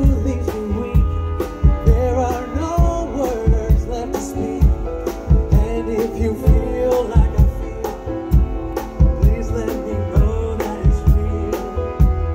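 Live swing band playing, with saxophones, trombone and drum kit, and a male singer singing over a steady beat.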